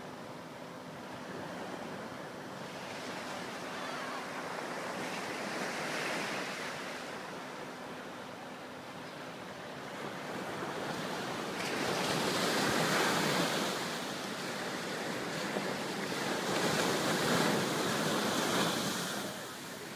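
Ocean surf: small waves breaking and washing up the beach, the rush swelling and fading, with two louder breakers in the second half.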